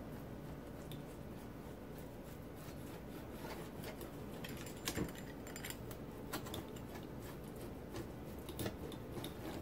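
Rolling pizza cutter wheel pressed through a cauliflower-crust pizza onto a cutting board: faint scraping with scattered light clicks.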